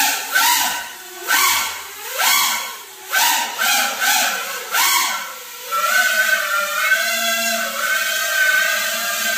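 Small FPV quadcopter's brushless motors and propellers whining, the pitch rising and falling again and again as the throttle is worked, then settling into a steadier hover tone about six seconds in.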